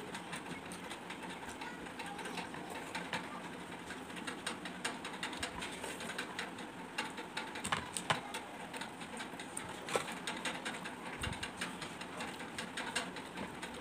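Close-up eating sounds of panta bhat eaten by hand: fingers squishing rice soaked in water, then wet chewing and lip smacks. They come as a quick, dense run of small clicks, with a couple of sharper smacks in the second half.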